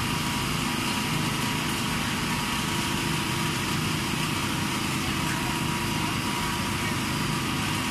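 A small engine running at a steady speed, an even drone that does not change.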